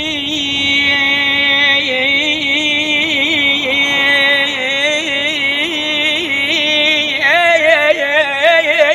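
A man singing in the Iraqi style, holding one long sung note with wavering ornaments. The note moves higher about seven seconds in.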